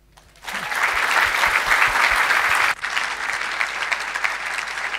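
Audience applauding, the clapping starting about half a second in; a little after halfway it drops off abruptly and carries on more softly.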